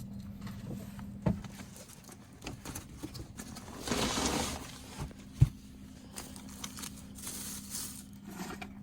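Things being handled: a few sharp knocks and clunks, the loudest about halfway through, and a brief rustle just before it, over a steady low hum.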